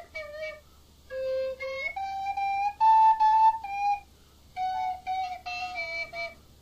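A short melody of clear, held notes on a flute-like wind instrument, some notes sliding in pitch, played in phrases with brief pauses, loudest about halfway through.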